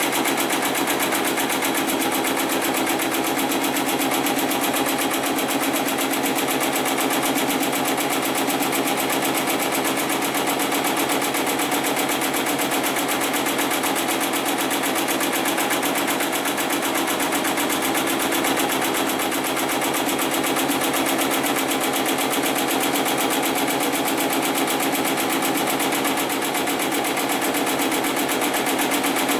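Programmable heavy-duty pattern sewing machine (model 75008) running and stitching continuously at a fast, steady rate.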